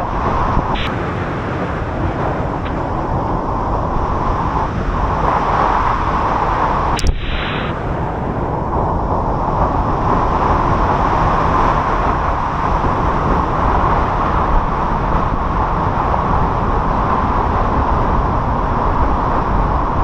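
Steady rush of a large waterfall crashing into its plunge pool, heard from right at its base in the spray, deep and full with a heavy low rumble.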